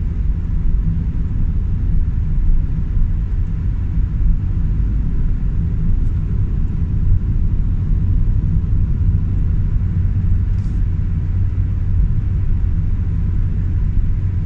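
Steady low rumble of a car travelling along, engine and road noise heard from inside the cabin.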